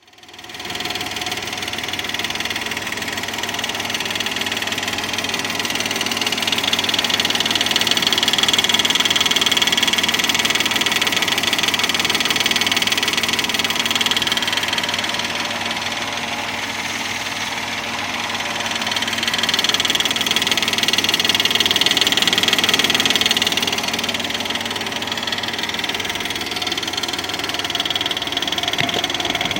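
BMW E39 530i's straight-six idling with a steady metallic rattle from the catalytic converter, swelling a little louder twice. Rattling like this at idle is the sign of a defective cat.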